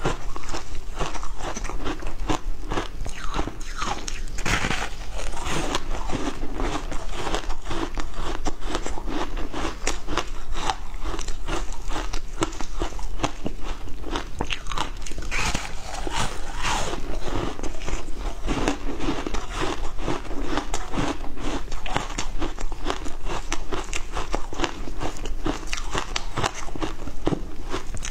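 Close-miked biting and chewing of a chunk of frozen passion fruit ice: dense, rapid crunching and crackling without a break.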